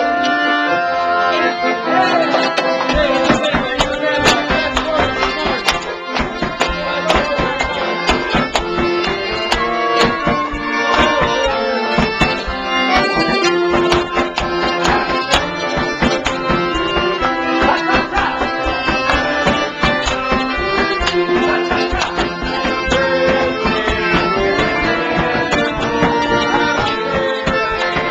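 Piano accordion playing a lively tune with held chords and a melody over them, under a steady rhythm of sharp percussive beats.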